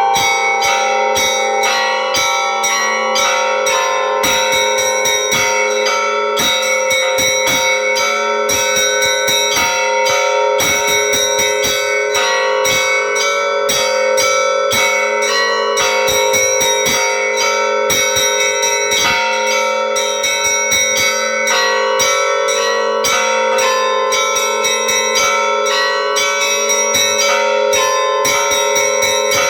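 Church bells ringing: many bells struck in quick succession, several strikes a second, over lower bell tones that keep sounding, without a pause.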